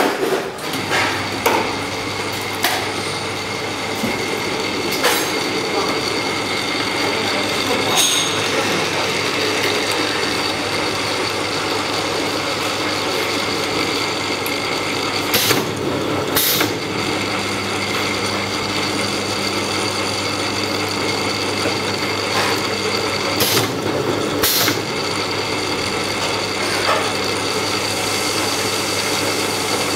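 Automatic single-head linear capping machine for pump caps running: a steady motor hum from the conveyor and capping head that sets in at the very start as the machine is switched on, with a steady high whine over it. Sharp mechanical clicks come every few seconds as the pneumatic cylinders and capping head work.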